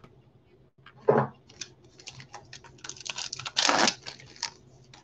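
Plastic-foil baseball card pack wrappers crinkling and tearing open by hand, with quick clicks and rustles of cards and wrappers being handled. A short louder knock comes about a second in, and a louder tearing rip about three and a half seconds in.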